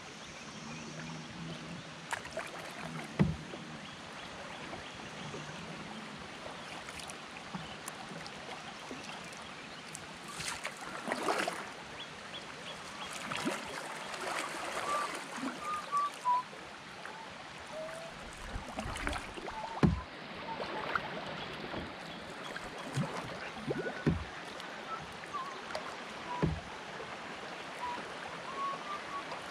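Shallow river water rippling steadily around a moving canoe, with a few sharp knocks now and then, the loudest about three seconds in and again near the middle.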